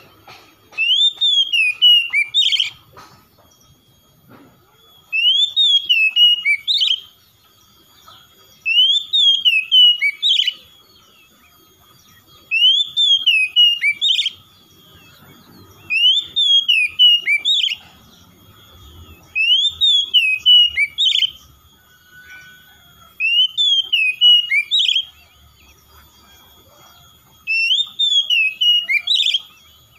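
Oriental magpie-robin singing: the same whistled, warbling phrase of about two seconds, repeated eight times with short pauses, roughly every three and a half seconds.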